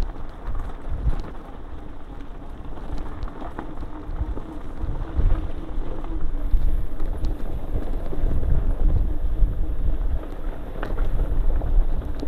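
Mountain bike riding down a rough dirt singletrack: wind buffeting the microphone in a continuous low rumble, with scattered clicks and knocks from the bike rattling over the bumpy trail.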